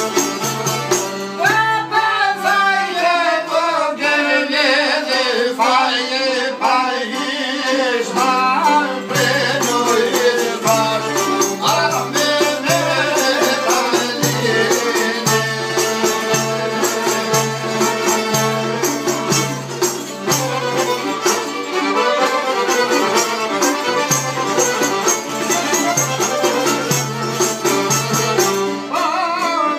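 Albanian folk song performed live: men singing with stringed-instrument accompaniment over a low beat that pulses about twice a second.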